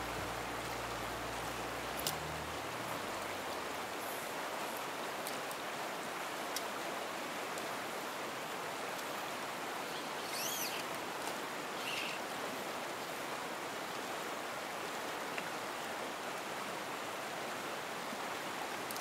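A small creek rushing over shallow riffles: steady, even water noise, with a few faint ticks and a couple of short high chirps about ten seconds in.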